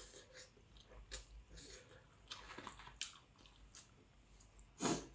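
Faint mouth sounds of someone eating: chewing, with scattered small clicks and smacks, and one louder short noise near the end.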